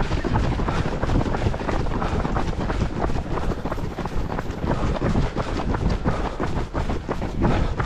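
Wind buffeting a GoPro Hero 10's microphone during a fast run, over the irregular footfalls of runners on the path.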